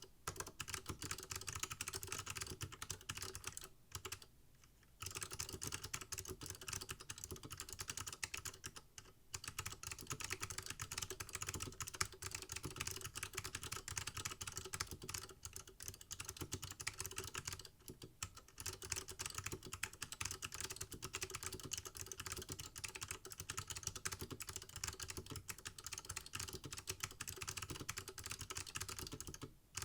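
Continuous fast typing on a mechanical keyboard with SMK Gen 2 Alps-mount (Monterey) switches and Apple Extended Keyboard II keycaps, a dense run of key clicks with brief pauses about four, nine and eighteen seconds in.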